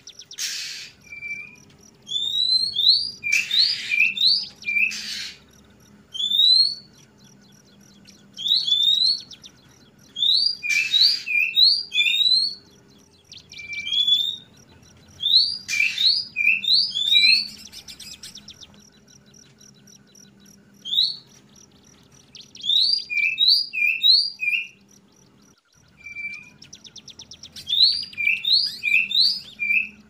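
Oriental magpie-robin (kacer) calling in short phrases of two to five quick rising whistled notes, repeated every few seconds, with a few short harsh bursts among them. This is the 'wik plong' call played to tutor young birds.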